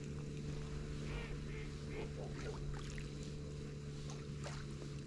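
A faint, steady low hum of a motor running at a constant pitch, with a few light, short high chirps or clicks over it.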